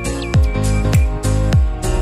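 Background music with a steady beat, a little under two beats a second, over held chords.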